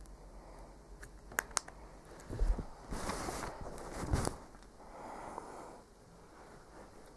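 Handling noise: two sharp clicks, a low thump, then rustling scrapes, as the camera and objects on the fabric are moved about.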